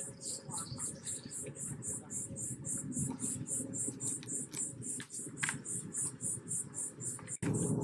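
An insect calling in an even, high-pitched pulse about four times a second, over a steady low hum.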